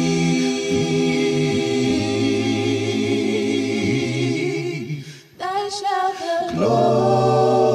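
An a cappella choir singing in harmony, holding long chords. A little past halfway the sound drops away briefly, then the voices come back in and the full chord returns.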